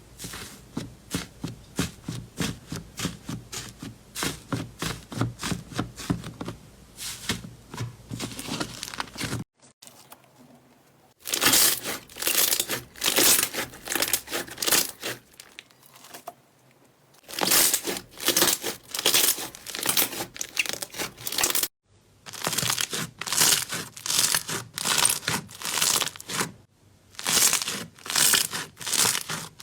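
Slime being squeezed and pressed by hand, crackling and popping in quick repeated strokes about two to three a second. This comes in several short stretches that stop and start again.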